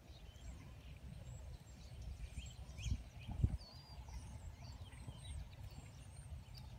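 Outdoor ambience: small birds chirping over a steady low rumble, with two dull thumps about three seconds in.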